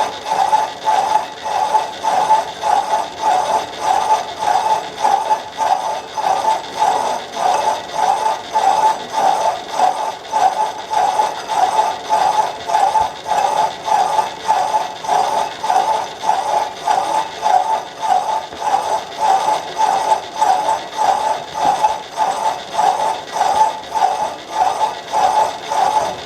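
Background music with a steady pulsing beat, about two pulses a second.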